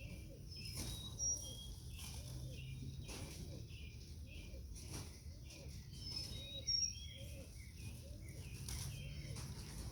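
Pigeons cooing, repeated low rising-and-falling coos throughout. Short high chirps of small birds come in around a second in and again around six to seven seconds, over a steady low background rumble.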